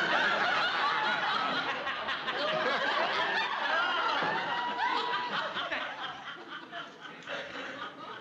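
Studio audience laughing, many voices at once, swelling in at the start and fading away over the last couple of seconds.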